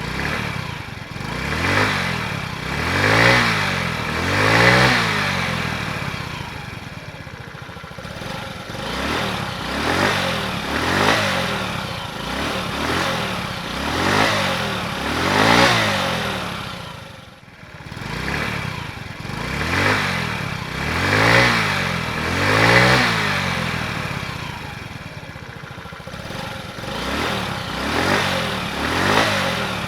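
Stock-exhaust Honda Ruckus 49cc four-stroke single-cylinder scooter engine being revved up and down repeatedly, its pitch climbing and falling again every second or two, with a short drop in level about halfway through.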